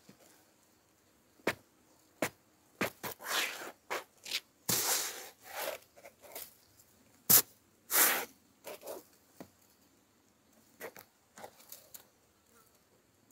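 Leather high-top sneakers shifting and scuffing on a weathered wooden rail: an irregular run of sharp clicks and short rubbing rasps, the loudest a sharp snap about seven seconds in.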